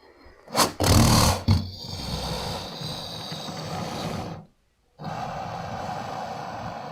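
Alligator making a loud, low chuff about a second in, followed by a long hissing breath. After a brief silent gap, another steady hissing breath starts.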